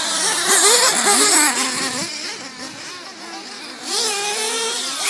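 Several remote-control race cars' small, high-revving engines whining as they accelerate and lift off, their pitches rising and falling over one another. They fade somewhat in the middle and grow louder again about four seconds in.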